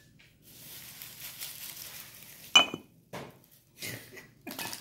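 Ceramic lid clinking against a glazed clay baking pot: one sharp clink with a short ring about two and a half seconds in, then a few softer knocks.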